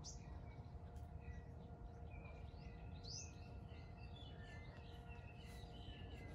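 Small birds chirping and twittering in quick short notes. A brighter falling note comes right at the start and another about three seconds in. Underneath runs a faint steady hum.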